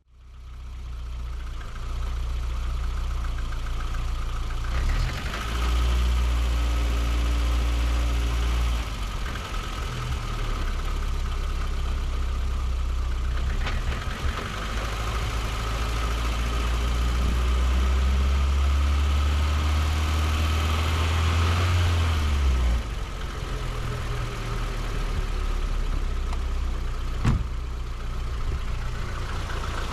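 Car engine running in gear, spinning a jacked-up drive wheel fast, with the wheel and its bearing humming, as a test for a worn wheel bearing. The low hum swells and drops a few times as the speed changes, and there is one sharp click near the end.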